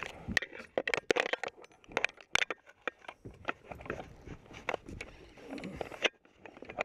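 Close handling noise: a run of irregular sharp clicks, knocks and scrapes, several to the second, with a short lull about six seconds in.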